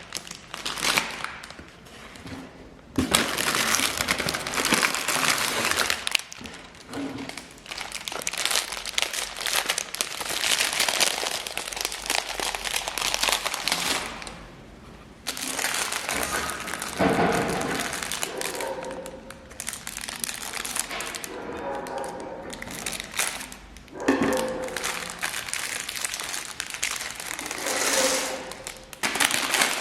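LEGO set packaging crinkling and rustling as it is handled, with many small clicks. The sound comes in long stretches broken by brief pauses, one near the start and one around the middle.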